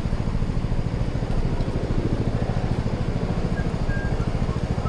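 A small engine running at a steady speed with a fast, even throb, its pitch unchanging.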